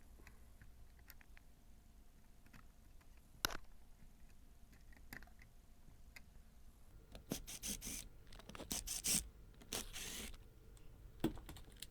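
Small clicks, then a few seconds of scraping and rustling from handling thermostat wiring at the wall, with a sharp click about three and a half seconds in and another near the end.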